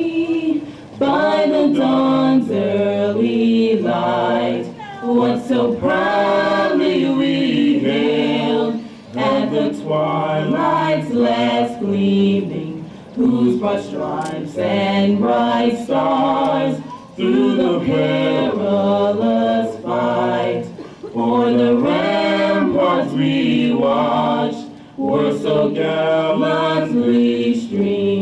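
A small group of two women and two men singing together without accompaniment, several voices in harmony with held notes and short pauses between phrases.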